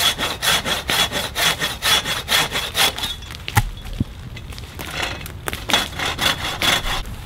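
Hand saw cutting through a tree branch in quick back-and-forth strokes, about four or five a second. It breaks off briefly about three seconds in, then saws on.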